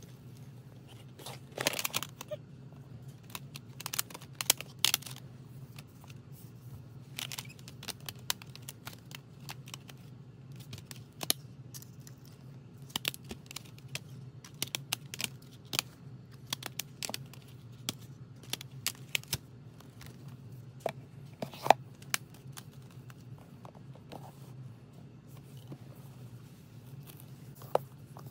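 Hands handling CD albums and their packaging: plastic CD cases clicking and tapping as they are lifted, opened and set down, with short crinkling and rustling of packaging between. A low steady hum runs underneath.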